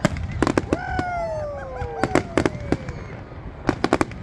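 Aerial fireworks shells bursting: clusters of sharp bangs and crackles, with a long tone falling steadily in pitch through the middle.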